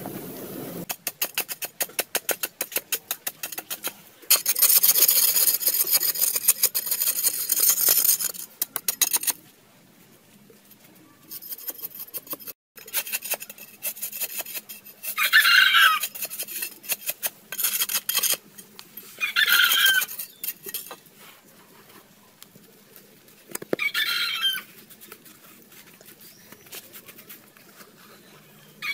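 A hand tool scraping and chipping into hard, dry earth, rapid scratchy clicks and a loud gritty scrape in the first several seconds. Later a rooster crows three times, a few seconds apart.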